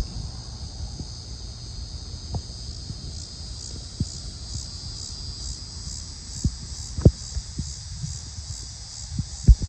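Chorus of summer insects, a steady high buzz that from about three seconds in pulses about twice a second. Scattered low thumps, loudest twice in the second half.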